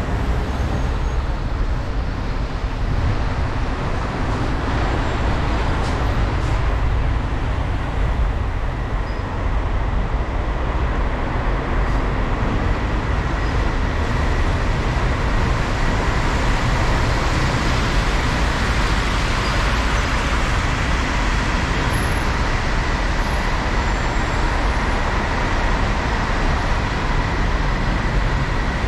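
A car driving slowly on a wet road: steady engine and road rumble with tyre hiss from the wet surface, and a faint steady high whine that grows a little stronger about halfway through.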